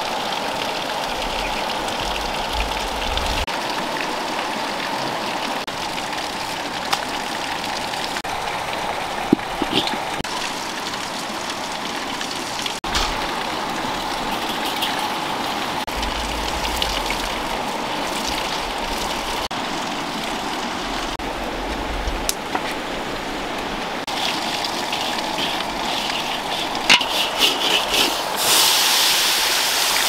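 Steady rushing of a flowing river. Near the end there is loud crackling and then hissing as food and water hit a hot wok.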